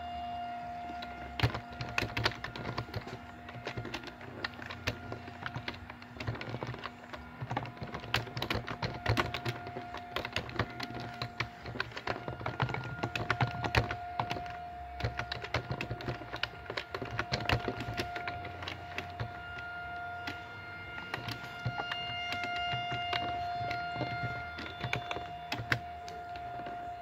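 Outdoor warning siren sounding a steady tone during a tornado siren test, swelling and fading in level with the loudest stretch near the end. Over it runs a dense, irregular patter of sharp clicks and taps.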